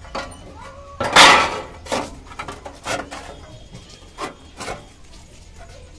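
Thin sheet-metal battery tray clattering and knocking as it is pressed and handled by hand, with one loud rattle about a second in followed by a few sharper knocks.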